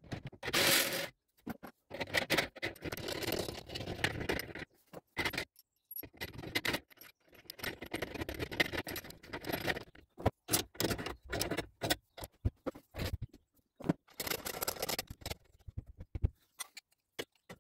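Metal parts clinking and scraping by hand as a long threaded rod with nuts is fitted through a spin bike's steel frame. The sounds come in short, irregular bursts with pauses between them.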